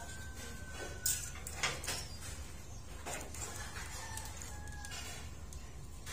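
Steel rebar clinking against a steel bending jig as stirrups are bent by hand, a few sharp metallic knocks about a second apart. A rooster crows faintly in the background.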